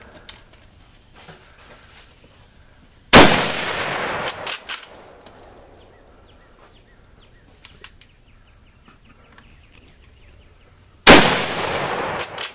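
Two gunshots about eight seconds apart, each a loud crack followed by an echo that dies away over about a second and a half, with a few faint clicks after the first shot.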